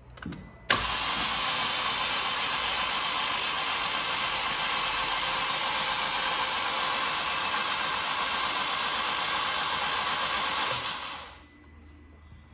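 Ford Fiesta ST's 1.6 EcoBoost engine being spun over on its starter motor with the spark plugs out and injectors unplugged, to build oil pressure before the first start. A steady, even noise starts sharply with a click about a second in and stops after about ten seconds.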